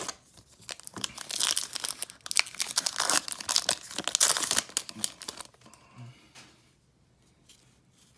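Foil trading-card pack wrapper being torn open and crinkled, a dense crackling rustle lasting about four seconds, followed by a few faint handling ticks.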